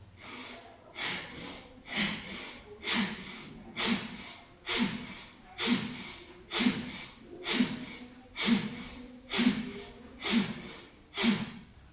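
A man's forceful, rhythmic breathing during a shoulder-pumping breathing exercise, hands on the shoulders and worked like a bicycle pump. There is about one sharp breath a second, about a dozen in all, each starting suddenly and fading.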